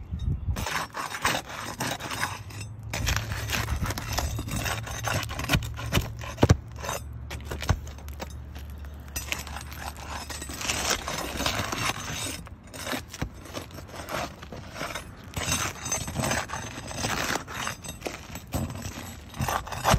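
Steel pry bar scraping and clicking under asphalt shingles as the shingle tabs are pried up, in bursts of gritty scraping and crackling with short pauses between.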